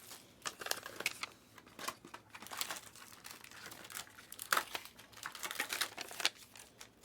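Plastic trading-card packaging being handled and crinkled: a run of irregular sharp crackles.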